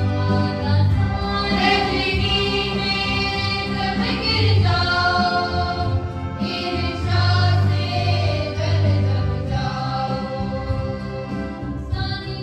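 Church hymn music on an electronic keyboard: a melody in long held notes over sustained chords and a steady bass.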